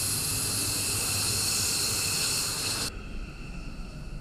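F-15 Eagle's twin turbofan engines running at taxi power close by: a steady jet whine over a loud hiss. The sound cuts off suddenly about three seconds in, leaving a much fainter low rumble.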